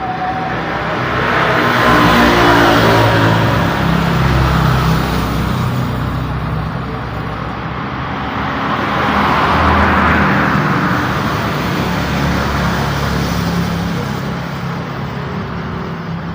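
Busy road traffic: vehicles pass one after another with engines running low. The loudest passes come about two seconds in and again about ten seconds in.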